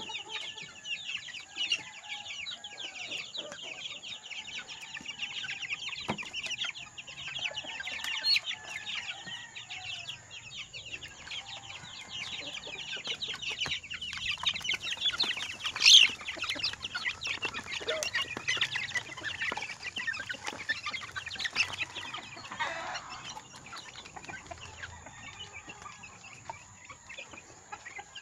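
A flock of month-old chicks peeping and cheeping at feeding time, many short high calls overlapping into a constant chatter. One sharp loud click about halfway through.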